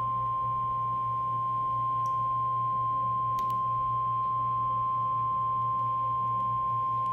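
NOAA Weather Radio warning alarm tone: a single steady 1050 Hz tone from the radio receiver, held for several seconds and cutting off sharply near the end, signalling that a warning broadcast follows. A steady low hum runs underneath.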